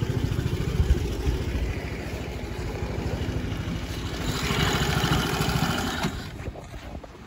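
A motor vehicle's engine running with a steady low pulse. A rushing noise swells about four seconds in, and the sound fades away near the end.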